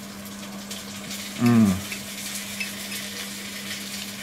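A man gives a short, falling "mmm" of enjoyment about a second and a half in while eating schnitzel. Under it runs a steady hiss and low hum, with a few faint clicks of a fork.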